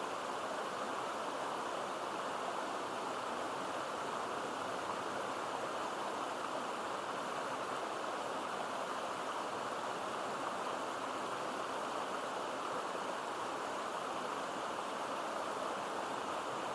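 Mountain stream water rushing and babbling over rocks. It is a steady, unbroken rush of water with no separate splashes or changes.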